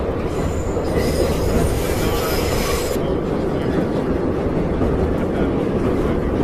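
Subway train running, heard from inside the car: a steady low rumble, with a high metallic squeal of the wheels on the rails for roughly the first three seconds that cuts off suddenly.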